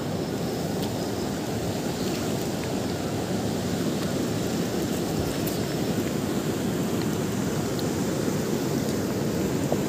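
Fast-flowing mountain river rushing over and around boulders: a steady, low rushing noise with a few faint ticks.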